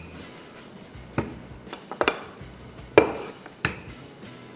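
Rolling pin knocking and clacking against the pastry board while puff pastry is rolled out: about five short, sharp knocks at irregular intervals, the loudest about three seconds in.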